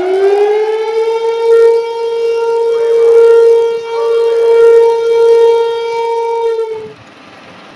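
Outdoor warning siren for the earthquake and tsunami drill. It winds up to a steady, loud wail about a second in, holds, and then cuts off near the end.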